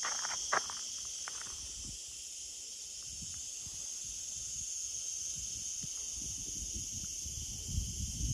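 Steady high-pitched chorus of insects, with a few crisp footsteps on the path in the first second or so and low rumbling in the second half.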